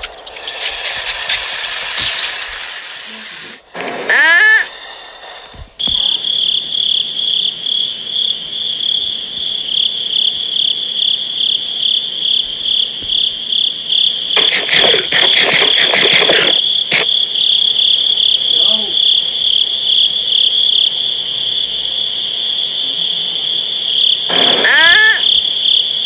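Crickets chirping steadily in a continuous pulsing trill that starts about six seconds in, after a few seconds of hissing noise. Short rising squeals sound twice, near the start and near the end.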